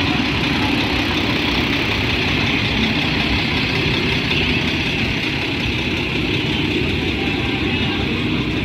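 A vehicle engine running steadily, with a heavy low rumble.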